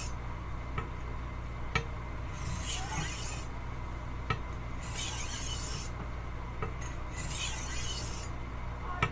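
Steel blade of a 10-inch Wusthof Classic chef's knife being stroked across a wet sharpening stone: three slow grinding strokes about two seconds apart, with a few light clicks between them. The blade's heel is being worked to raise a burr.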